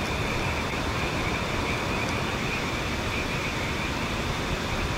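Steady rushing outdoor ambience with a continuous thin, high trill over it.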